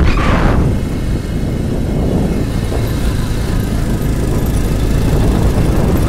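Rumble of a moving vehicle with wind buffeting the microphone, steady and loud throughout.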